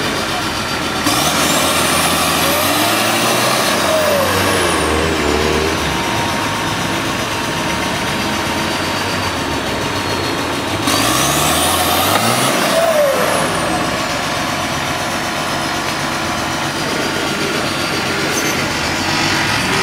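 Nissan Patrol 4x4 engine working under load on a steep off-road climb, revving up hard twice, about a second in and again about eleven seconds in, each time rising and then falling back over a few seconds.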